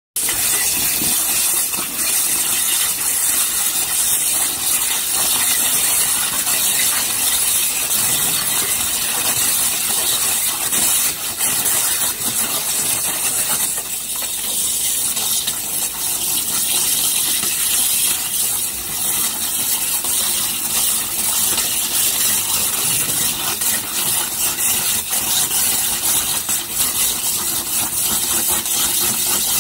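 High-pressure jet of a five-axis water jet cutting machine cutting through a slab: a loud, steady hiss with no pauses.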